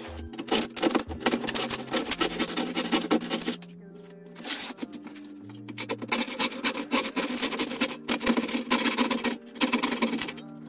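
Handsaw cutting plywood in quick back-and-forth strokes, in three runs with short pauses near 4 s and 9.5 s. It is finishing the corners of a window cutout that a track saw started.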